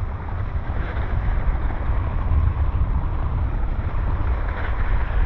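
Wind rumbling and buffeting on an action camera's microphone during a downhill ski run, with the hiss of skis sliding over groomed snow underneath.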